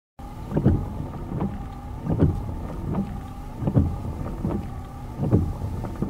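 Rainwater dripping into a drain in a regular rhythm: a heavier plop about every one and a half seconds with a lighter one between each, over a steady faint tone.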